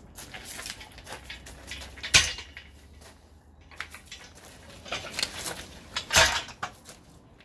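Metal clanking and rattling from a pickup-truck crane mast with a hand winch as it is lifted and carried: two sharp clanks, about two seconds in and about six seconds in, with lighter clinks between.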